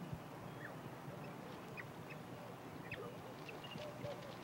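African wild dog pups at the den giving faint, scattered short high chirps and soft twittering calls.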